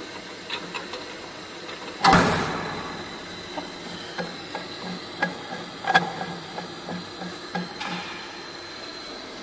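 Hand work on a tube filling and sealing machine: a sudden loud rush of noise about two seconds in that dies away within half a second, then a string of light metallic clicks and taps, one of them sharp about six seconds in.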